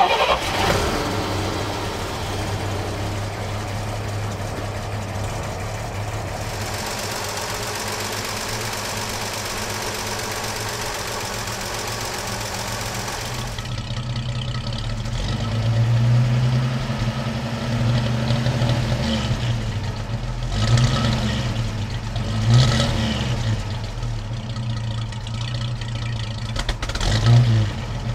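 1955 Chevrolet 3100 pickup's engine starting and settling into a steady idle. In the second half it idles with several short blips of the throttle.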